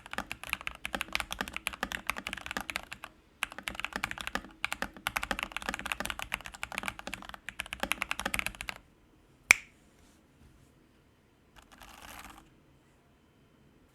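Fast typing on a fully modded MK870 mechanical keyboard with hand-lubed Gateron Milky Black linear switches, a dense run of keystrokes with two short pauses, stopping about nine seconds in. A single loud sharp click follows, then a brief soft rustle.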